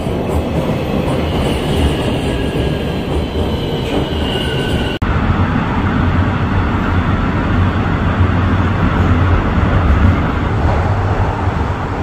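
Toronto subway train pulling into the station, its wheels giving a high squeal over a loud rumble. About five seconds in, the sound cuts to the steady low rumble inside the subway car.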